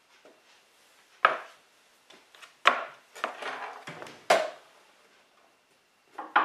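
Four sharp knocks with some rattling in between: hard parts of a miter saw's blade assembly being handled and set down as it is taken apart.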